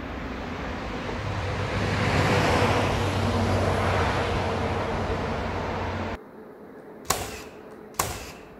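A motor vehicle passing, its noise swelling and fading over a steady low engine hum, then cutting off about six seconds in. Near the end, two sharp hammer blows on the wooden roof battens, about a second apart.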